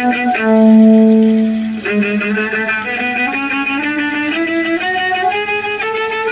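Violin playing a melody: a long held note about half a second in, the loudest moment, then a run of shorter notes stepping steadily upward in pitch.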